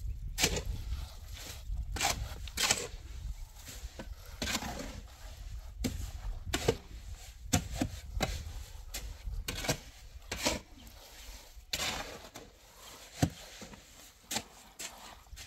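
Wet plaster being scooped by a gloved hand and smeared and patted onto a masonry wall: irregular scrapes and soft slaps, roughly one a second.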